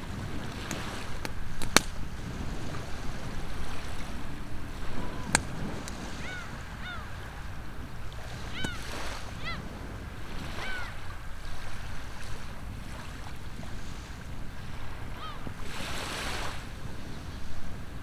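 Steady wind and calm sea washing on the shore, with short, high-pitched bird calls several times in the middle and a few sharp clicks in the first few seconds.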